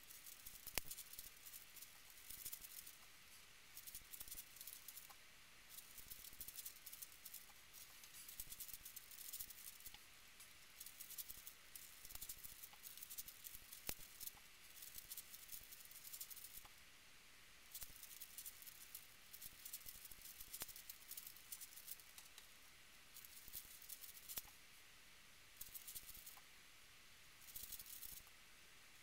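Faint plastic clicking and rattling of a 5x5 twisty-puzzle cube turned by hand, in bursts of rapid turns separated by short pauses. The footage is fast-forwarded, so the turning comes quick and dense.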